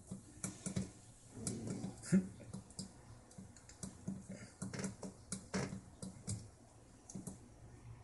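Small tactile pushbuttons on a Digilent FPGA development board clicking as a finger presses them in quick, irregular succession, like typing, over a faint low steady hum.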